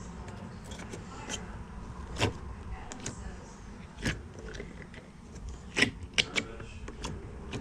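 Slime and its plastic kit pieces being handled: a handful of scattered sharp clicks and taps, the loudest near the end.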